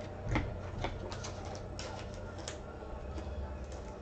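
Trading cards being handled and sorted during a pack break: a few soft clicks and rustles over a low rumble.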